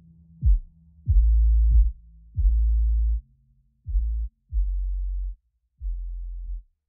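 Electronic music carried almost entirely by deep bass notes, each starting with a sharp hit that slides down in pitch. The notes come about once a second and grow quieter toward the end.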